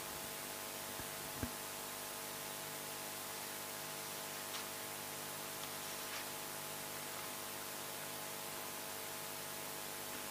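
Steady hiss with a low electrical hum, the background noise of a live broadcast audio feed between announcements. A faint click about one and a half seconds in.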